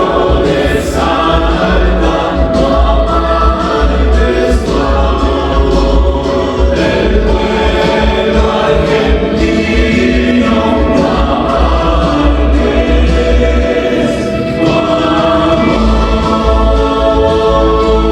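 Music with a choir singing sustained, chord-like vocal lines that shift every few seconds.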